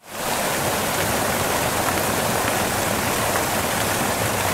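A steady, even hiss of noise, fading in quickly at the very start and then holding level.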